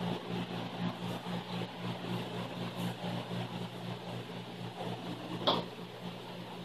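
Steady low hum with an even hiss, the room's background machine noise, and a single sharp click about five and a half seconds in.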